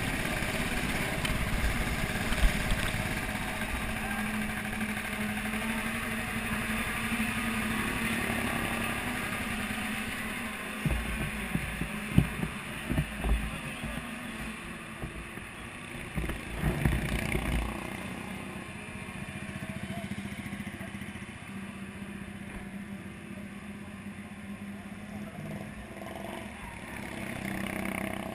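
Racing kart engine running at low revs as the kart rolls in, its steady note dying away after about ten seconds. Scattered knocks and clatter follow, then a low steady background of engines.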